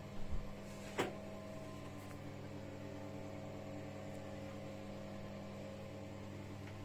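Steady low electrical hum with several fixed pitches, a couple of soft low bumps just after the start and a single sharp click about a second in.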